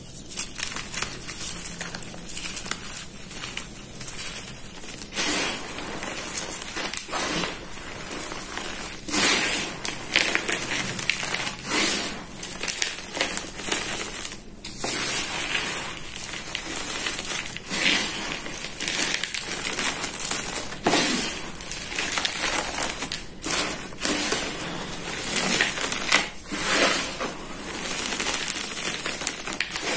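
Soft reformed gym chalk chunks crushed and crumbled by hand into loose powder: a continuous dry crunching and crackling, with louder crunches every couple of seconds.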